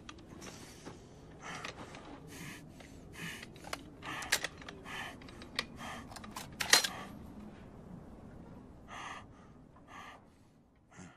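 Scattered sharp mechanical clicks and short rustling noises over a low rumble. The loudest clicks come about four and about seven seconds in, and the sounds thin out near the end.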